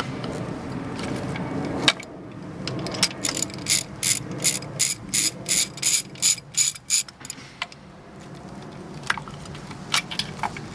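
Socket ratchet clicking in quick, even strokes, about three or four clicks a second, as it turns a spark plug in the cylinder head. A steady scraping noise comes before the clicking, and a few single clicks come near the end.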